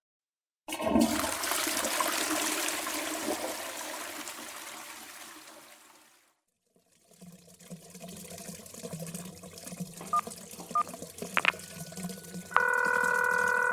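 A toilet flushing, a loud rush of water that starts about a second in and fades away over about five seconds. After a pause come a few short clicks and then a telephone ringing tone near the end, a call being placed.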